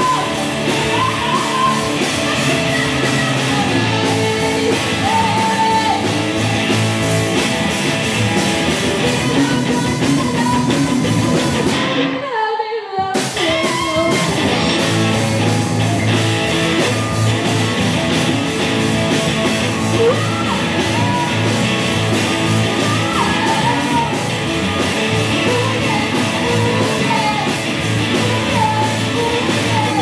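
A live rock band playing: electric guitars, bass guitar and drums, with a girl singing into a microphone. The sound dips and thins out briefly about twelve seconds in, then the band carries on.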